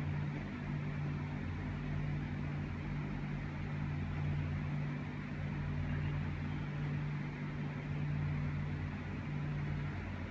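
A steady low machine hum with an even hiss of air over it, unchanging throughout.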